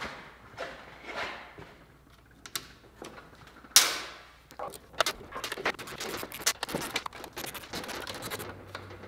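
Small metal parts clinking on a steel workbench as the bolts from the battery case are handled. There is one sharp metallic clack about four seconds in, then a run of light, quick clinks and rattles.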